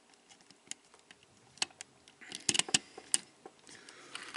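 Hard plastic parts of a Transformers Siege Springer action figure clicking as they are folded and pressed into place by hand: scattered light clicks, with a quick louder cluster of clicks about two and a half to three seconds in.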